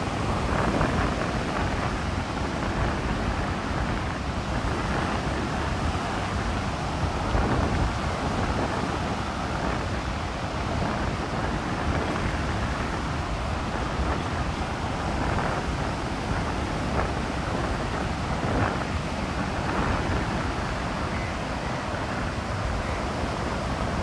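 Wind buffeting the microphone with a low rumble over the steady wash of rough monsoon surf breaking on a sandy beach.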